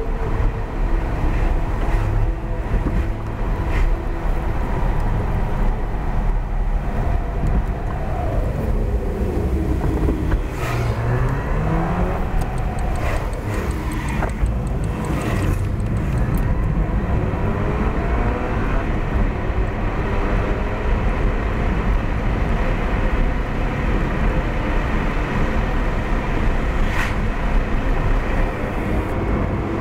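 Car driving on a village road: steady engine and tyre noise, the engine note dropping as the car slows about eight seconds in, then climbing as it pulls away and accelerates, with a few brief knocks along the way.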